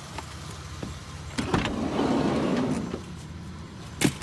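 Objects from a curbside scrap pile being handled and moved: a knock, then about a second of scraping or sliding, and a sharp knock near the end, over a steady low hum.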